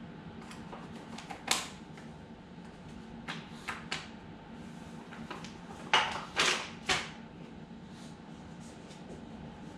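Short rustling and clattering handling noises as flour is poured from a bag and worked through a sifter into a mixing bowl, the loudest three close together just past the middle. A steady low hum runs underneath.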